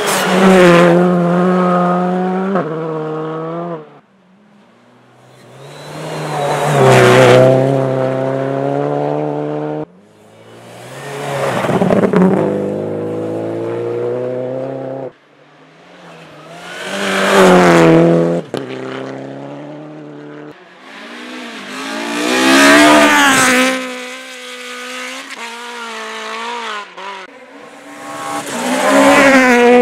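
Rally cars driving flat out through a snowy stage one after another, about five passes cut together, the first a Škoda Fabia R5. Each engine swells to high revs with pitch rising and falling through gear changes, then cuts off abruptly at the edit.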